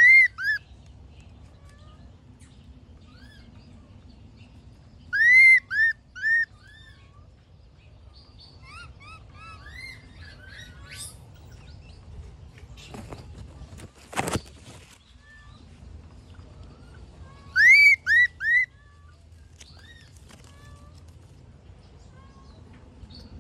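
High, arched chirping calls in three loud bursts of two to four chirps each: one at the start, one about five seconds in and one about eighteen seconds in, with fainter chirps in between. A short noisy burst comes about fourteen seconds in.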